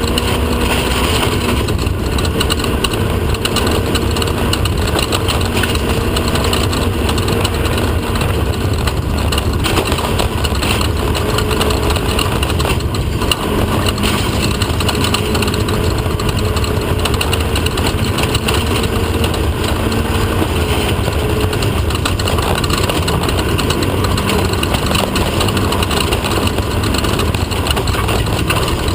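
Off-road desert race car's engine running steadily, a constant drone with the noise of the car under way.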